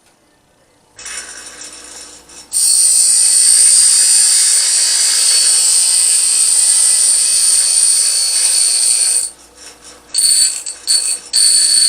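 A power grinder grinding steel down to dust, a loud steady high-pitched grind with a piercing whine. It starts about two and a half seconds in, breaks off about nine seconds in, comes back in a few short bursts, then runs steadily again near the end.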